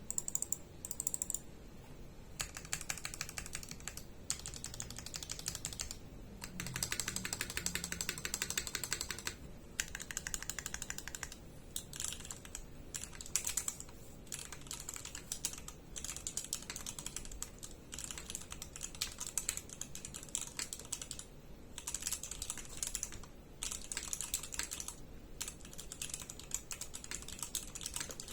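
Typing on a Keycult No.1/65 custom mechanical keyboard with C³ Equalz Tangerine linear switches and GMK bento keycaps: fast runs of keystrokes broken by short pauses.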